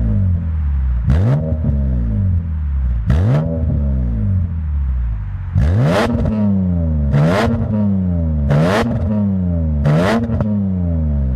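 BMW E46 M3's straight-six engine being revved in about six sharp blips, each rising quickly and falling back more slowly.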